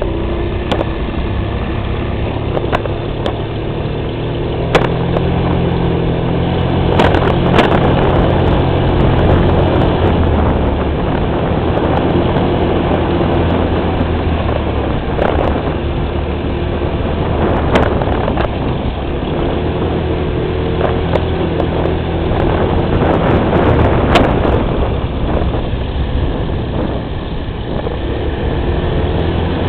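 A motor vehicle's engine running as it rides along, its low drone stepping up and down in pitch with speed, under heavy wind noise on the microphone. A few sharp knocks come through, about seven in all.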